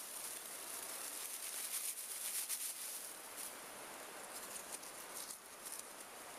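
Close-up rustling and crackling of a dry grass tinder bundle being worked by hand, then thin papery bark being torn into strips to ready a fire. Crisp, irregular crackles, thickest from about two to three and a half seconds in.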